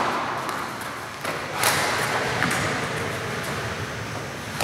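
Racquetball play in an echoing indoor court: a few sharp smacks of racquet and ball off the walls, the loudest a little over a second and a half in, over a steady hiss of room noise.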